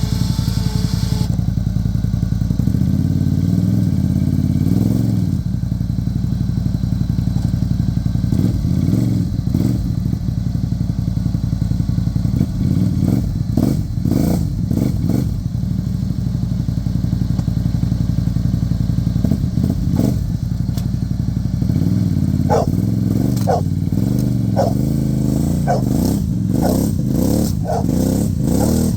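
A vehicle engine running steadily, its revs rising and falling in the second half with some clatter.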